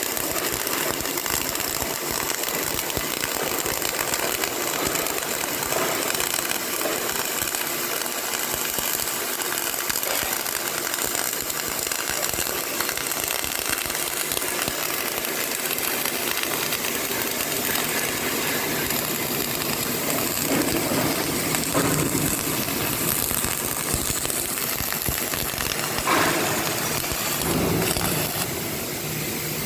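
CO2 (MIG/MAG) welding arc crackling steadily as a bead is run, a dense rapid sizzle that eases off slightly near the end.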